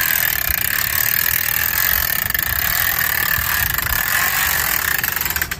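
Manual Carefree RV awning unrolling as it is pulled out by its strap: a steady mechanical rushing and whirring from the spring-loaded roller and the sliding arms. It cuts off suddenly near the end.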